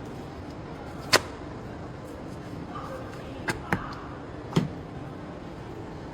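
Four sharp clicks or knocks of hard objects being handled, the loudest about a second in, then a quick pair and one more a second later, over a steady background hiss.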